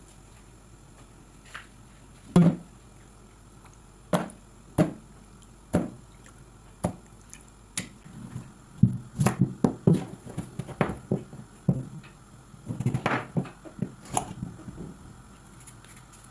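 Irregular knocks and thuds indoors: single hits about a second apart, then quicker clusters of knocking twice, near the middle and toward the end.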